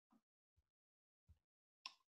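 Near silence, broken by a few faint, very short sounds, the last one near the end the loudest.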